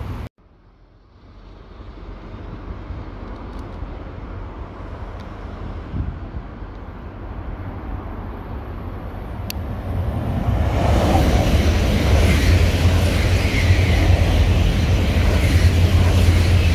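E4 series Max double-deck Shinkansen approaching on an elevated track: its running noise builds gradually and becomes loud about two-thirds of the way in as the train passes close by.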